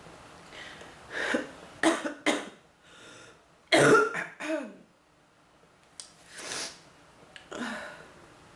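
A woman with bronchitis in a coughing fit: three sharp coughs, then a louder burst of coughing about four seconds in that trails off in a falling, strained tone, followed by two noisy breaths.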